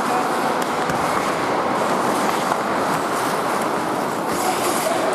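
Ice hockey in play: the steady rushing scrape of skates on the ice, broken by a few sharp clicks of sticks and puck.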